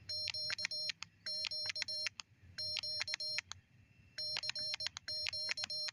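Morse code sidetone from a small QRP transceiver's built-in speaker, keyed by hand with iambic paddles at about 20 words a minute: a steady beep switched on and off in dots and dashes, sent as five short groups of characters with pauses between.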